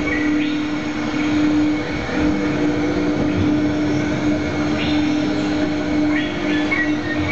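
Spinning disc ride running along its track, heard from on board: a steady mechanical hum over rolling wheel noise, with a few short high squeaks near the end.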